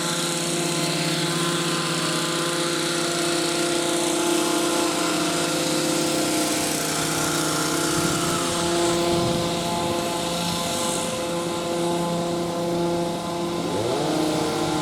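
Stihl two-stroke chainsaws running steadily at high revs, a continuous high engine drone.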